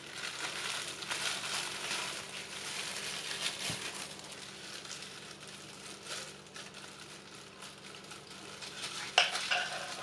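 Disposable plastic food glove crinkling and rustling in irregular small crackles as the hand handles and cuts the soft mooncakes, with a sharper crackle about nine seconds in.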